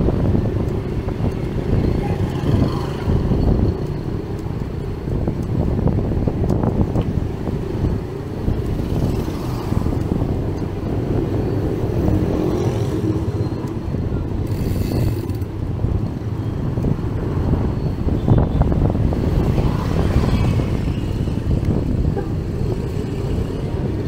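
Busy town street traffic: motorcycle and other vehicle engines passing, with scattered voices and a steady low rumble throughout.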